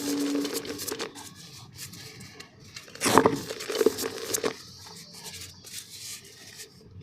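Soft, dusty black mud crumbling and crunching in a clay pot, with crackling textures and a louder cluster of crunches about three seconds in.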